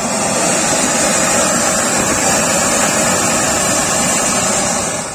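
A tubri (a clay-pot firework fountain) burning at full force, with a loud, steady rushing hiss as it jets a tall shower of sparks.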